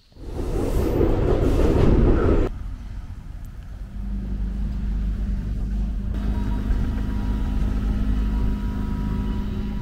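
Vehicle noise in two cut-together parts: first a loud rush of noise that stops abruptly about two and a half seconds in, then a steady low running hum with a held drone.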